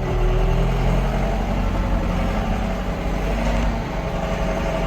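John Deere 6420 tractor's diesel engine idling steadily, running again on a freshly primed fuel system with bled injectors.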